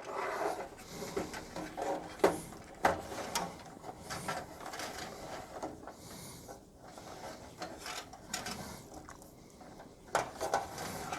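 Computer cables and their plastic plug connectors being handled and fed through a metal PC case: rustling with scattered light clicks and knocks, thickest near the end.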